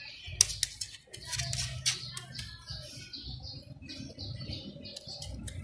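Puppy gnawing at the edge of a wooden plank, its teeth clicking and scraping on the wood in a scattering of sharp clicks.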